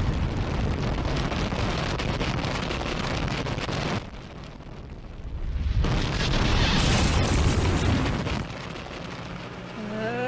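Sound effect of an atomic bomb detonation: a long, loud rumbling blast that dies down about four seconds in. A second blast surges up about six seconds in and fades a little past eight seconds.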